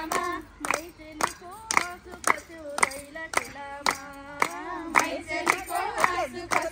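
Women singing a Nepali Teej folk song in chorus, with hand clapping keeping an even beat of a little under two claps a second.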